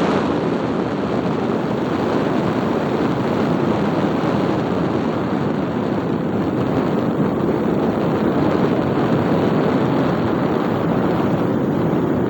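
Electric arc welding: the arc crackling and sizzling steadily as a bead is laid.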